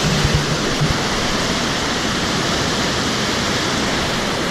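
Steady, loud rush of a waterfall's cascading water, with a few low bumps in the first second.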